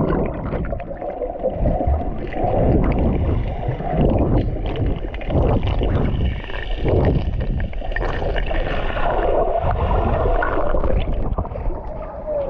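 Sea water splashing and sloshing around a handheld camera carried by a person swimming, with the uneven churn of his strokes in the water.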